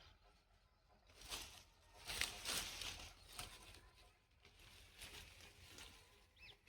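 Faint rustling and crackling of leafy garden plants being handled, loudest in a cluster of noisy bursts over about two seconds, with a short chirp near the end.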